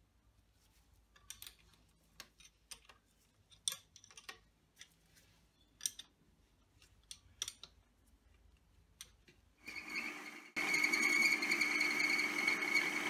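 Metal clicks and clinks as a lathe's quick-change tool holder is adjusted and clamped with a spanner. About ten seconds in the metal lathe starts and runs steadily with a high whine as the chuck spins.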